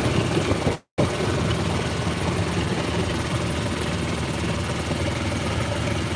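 Yamaha vehicle driving along, its running and road noise mixed with wind noise on the microphone. The sound cuts out completely for a moment about a second in.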